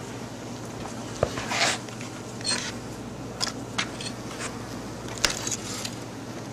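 Wooden screened bee packages being handled on a concrete floor: a string of short knocks and scrapes, the loudest about a second and a half in and again near five seconds, over the steady low hum of the bees inside.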